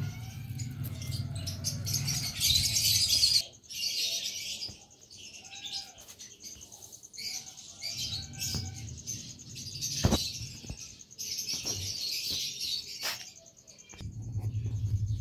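Small birds chirping and chattering in bursts, over a low rumble near the start and end and a single click about ten seconds in.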